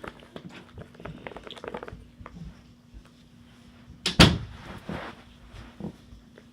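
Small clicks and handling noises, then a single loud, sharp knock about four seconds in, followed by a couple of softer knocks.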